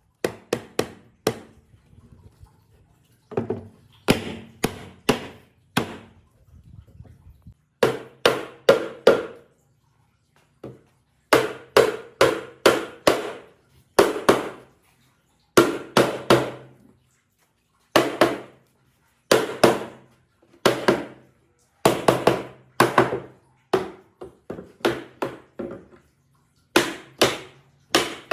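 Repeated sharp blows of a striking tool on wood, in clusters of two to four about two a second, with short pauses between clusters.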